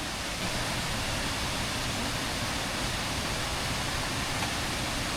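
Steady rush of flowing water from a woodland stream and waterfall, an even hiss with no change in level.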